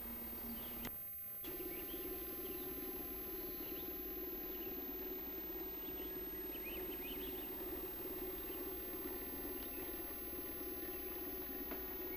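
A steady low hum, with faint short high chirps like distant birds above it. About a second in, the hum drops out briefly and returns slightly higher in pitch with an even flutter.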